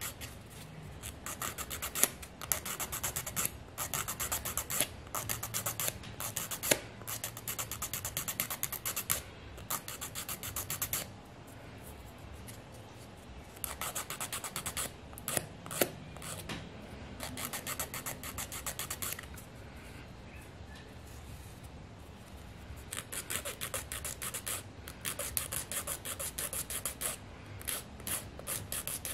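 A hand nail file rasping back and forth in quick strokes on artificial soft gel nail tips, shaping them. The filing comes in three runs, with short pauses of a couple of seconds between them.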